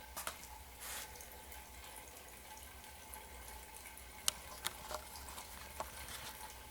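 Rainwater leaking into a flooded basement: a steady faint trickle with a few sharp drips landing, the clearest about four seconds in.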